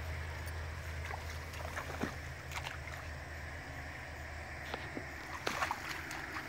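Bernese Mountain Dog wading in shallow stream water, making small irregular splashes and sloshes, a few louder ones near the end.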